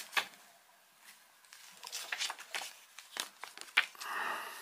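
Paper quick-start leaflet rustling as it is handled and folded: a series of short crinkles, with a longer rustle about four seconds in.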